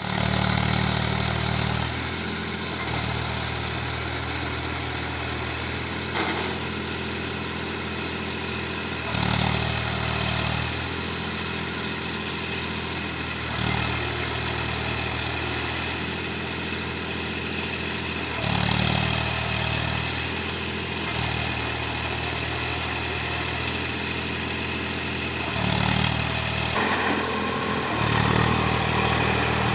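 Eicher tractor's diesel engine running steadily, revved up briefly every few seconds, about six times.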